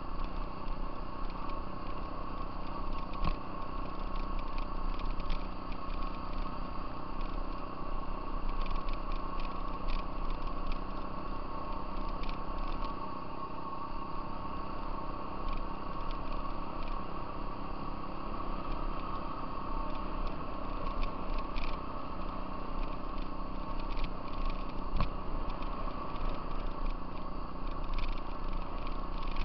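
Off-road vehicle engine running at a steady speed while riding a gravel trail, with tyres crunching on gravel and scattered clicks and rattles from stones and the machine.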